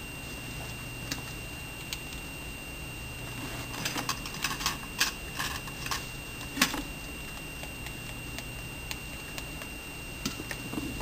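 Scattered light clicks and taps of small hard objects being handled, thickest about four to six seconds in, with one sharper knock soon after, over a steady low hum.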